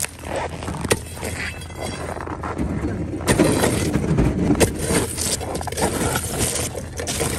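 Iron ice bar striking and prying at blocks of river ice, giving sharp knocks and the crunch and crack of ice and packed snow, loudest from about three to five seconds in. A steady low rumble runs underneath.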